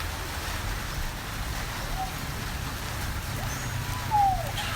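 Steady rain falling, with a low rumble underneath. Near the end a goat gives one falling bleat.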